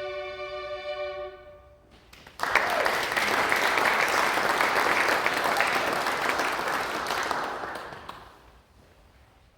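Violins hold a final chord that dies away, then the audience applauds for about five seconds before the clapping fades out.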